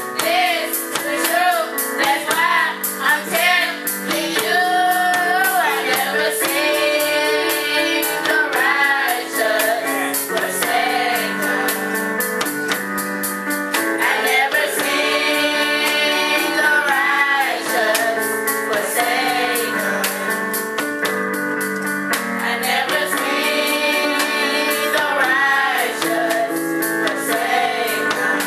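A youth choir singing a gospel song together, with sustained instrumental backing and a steady percussion beat.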